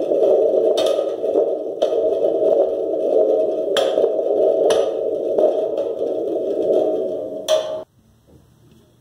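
Homemade thunder tube, a cardboard tube with a metal bottom and a stretched heater-element coil spring, shaken to make a continuous thunder-like rumble with a few sharp metallic clicks. It stops suddenly about eight seconds in.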